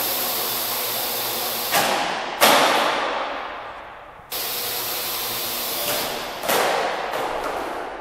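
Parrot AR.Drone quadcopter's electric rotors whirring as a steady hiss with a faint hum. The sound fades away from about two and a half to four seconds in as the drone sets down and its motors wind down, then comes back suddenly at full level.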